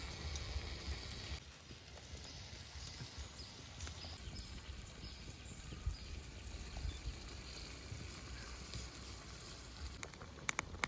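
Water heating in a metal wok full of snails in their shells, a faint steady bubbling over a low rumble, with a few sharp clicks near the end.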